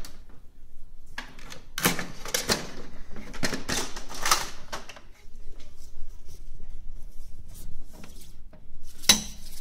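Plastic clicks and knocks of an OKI B6200 laser printer's top cover and paper tray being opened and handled. They come as a run of separate strokes, with a louder knock near the end.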